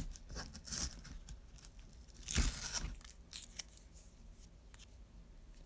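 Scotch tape being pulled off its roll and torn, then handled against a cardboard tube: scattered short crackles, with the loudest rip lasting about half a second, some two and a half seconds in.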